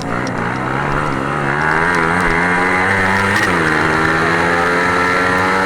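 Racing engine under hard acceleration, its pitch climbing, dropping sharply about three and a half seconds in on an upshift, then climbing again.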